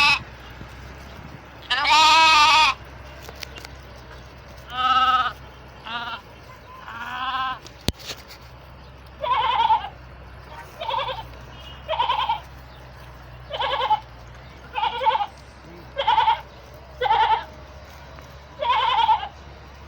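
Sheep bleating, about a dozen separate calls of varying pitch, some short and some drawn out, over a steady low hum.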